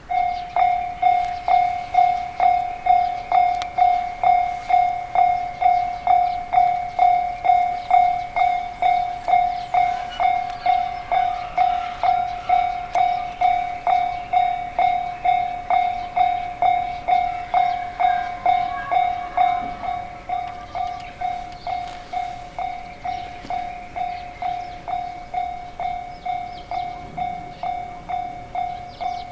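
Japanese railway level-crossing warning bell ringing its 'kan-kan' alarm, a single bright tone struck steadily about twice a second, a little fainter in the second half.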